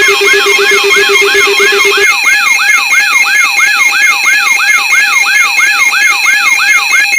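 Loud electronic alarm tones in several layers: a falling sweep repeats about three times a second over a bed of steady high tones. A low pulsing tone drops out about two seconds in.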